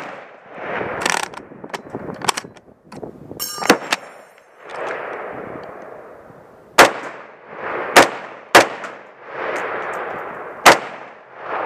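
SKS rifle being loaded from a stripper clip, with metallic clicks and a ringing clang, then fired four times, each shot a sharp crack that echoes off. Two of the shots come close together, about half a second apart.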